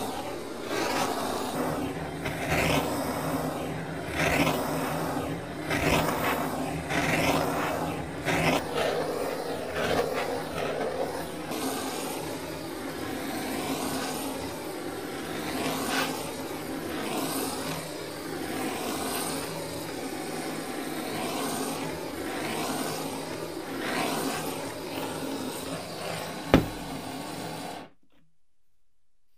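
Handheld gas torch burning with a steady hiss, swelling and fading as the open flame is swept back and forth over metal parts. A single sharp knock comes shortly before the sound cuts off suddenly.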